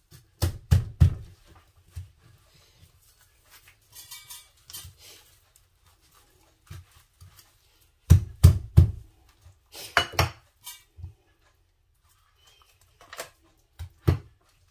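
Kitchen clatter: sharp knocks and clinks of utensils and dishes being handled, in short clusters about half a second in, around eight to nine seconds, at ten seconds and near the end.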